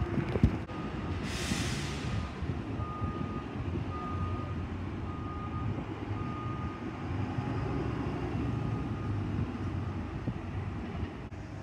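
Buses' diesel engines running as they turn past, with a short hiss of released air about a second in. A reversing-alarm-style beeper sounds a single steady tone about once a second through most of it.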